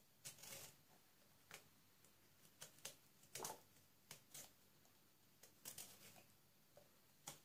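Near silence broken by a dozen or so faint, short clicks and scrapes: eggplants being handled and moved on a metal tray.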